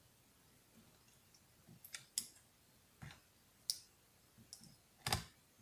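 A few faint, scattered clicks as fingertips pick at the tape and cable plug inside an open laptop, the loudest about five seconds in.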